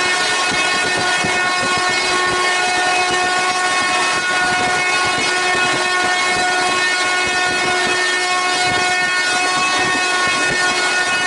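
A WAP-4 electric locomotive's horn held in one long steady blast, over the rushing noise of the train running fast on the rails.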